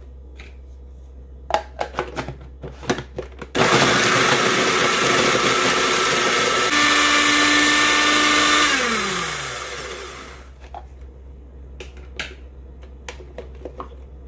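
Countertop food processor mincing ginger, garlic and lemongrass. A few sharp plastic clicks as the lid and pusher go on, then the motor runs loudly for about five seconds and winds down with a falling whine once it is switched off. More plastic clicks come near the end as the pusher and lid are taken off.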